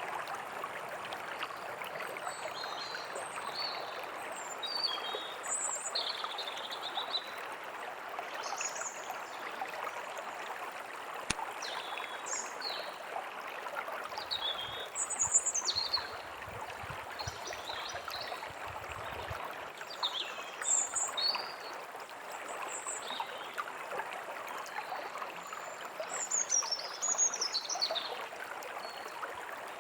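A small stream running steadily, with songbirds chirping and calling over it in short, high, repeated phrases.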